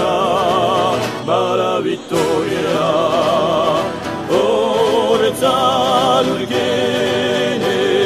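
Music: a Corsican supporters' song for the blue team, several voices singing together with a strong vibrato over instrumental backing, in phrases broken by short breaths.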